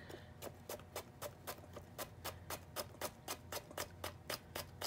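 Kitchen knife tapping on a plastic cutting board as fresh ginger is cut into thin matchsticks: light, even strokes about four a second.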